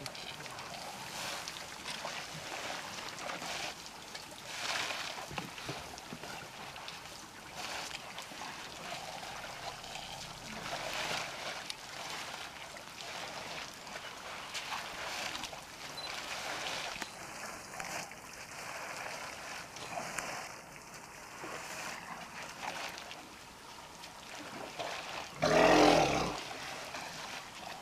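Elephant herd drinking at a waterhole: water trickling and splashing as trunks suck up and spill water, in swells every few seconds. Near the end comes one louder, short burst of sound.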